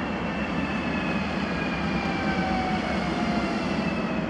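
Electric multiple unit pulling into the station, its traction motors whining in a slowly falling pitch as it slows, over a steady low rumble of wheels on rails.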